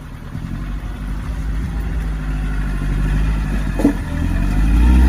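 Off-road vehicle's engine running as it drives, growing steadily louder, with a single short knock about four seconds in.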